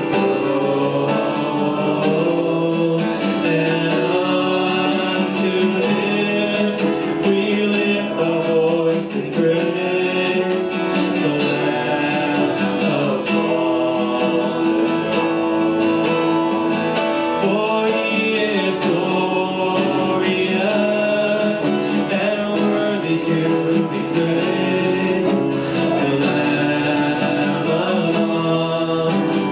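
A worship song: a man singing the melody while strumming an acoustic guitar.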